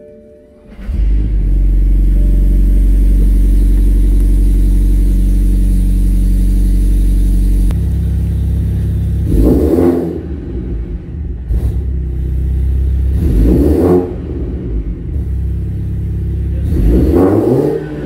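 BMW 330e hybrid's B48 turbocharged four-cylinder, breathing through a catless downpipe and a custom 3-inch exhaust with a Borla XR-1 muffler and Vibrant resonator, starts about a second in and runs at a steady high idle. After several seconds it drops to a lower idle, then is revved three times, each rev rising and falling back quickly.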